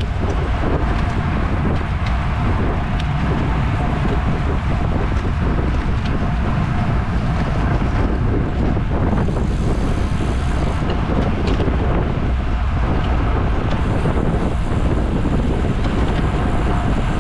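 Steady wind buffeting on the microphone of a camera on a bicycle ridden at race speed in a criterium.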